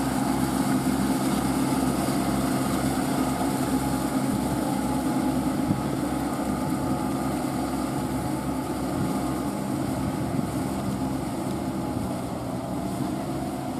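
Engines of two Kubota mini tractors on cage wheels running steadily as they work through deep paddy mud, growing slightly fainter near the end as they move away.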